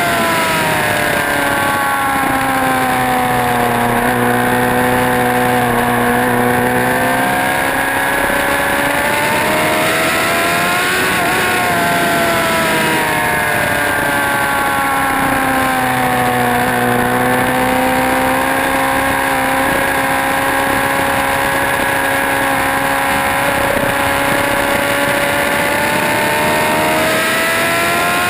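Motorcycle engine running hard on a racetrack, its revs changing continuously. The pitch drops over the first few seconds, rises to a peak about eleven seconds in, dips again, then climbs slowly through the second half.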